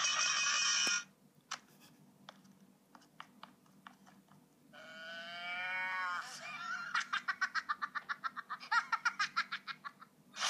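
Sounds of a video played through a small phone speaker: a few faint clicks, then a drawn-out voiced call that bends up and down in pitch, then a fast run of cackling pulses at about eight a second.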